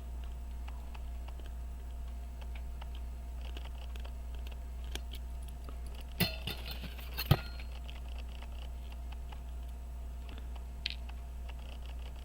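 Small metal tools clicking and tapping on a pocket watch movement during disassembly, light scattered ticks with a cluster of sharper clicks about six to seven seconds in, over a steady low hum.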